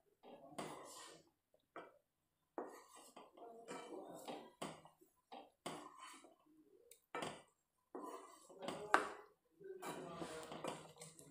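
Wooden spatula stirring a watery semolina (suji halwa) mixture in a metal kadhai, with irregular knocks and scrapes against the pan and the liquid sloshing, in short bursts with brief pauses.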